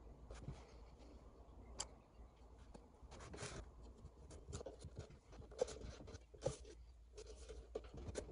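Faint handling sounds: scattered light clicks, taps and rustles of wooden ice-lolly sticks and cardboard as a glued stick portcullis is picked up and fitted into a cardboard box's gate slot.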